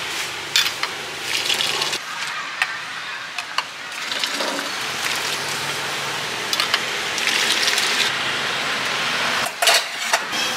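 Clinks and knocks of a metal soup ladle against bowls and a pot over a steady hiss of a busy street-food stall.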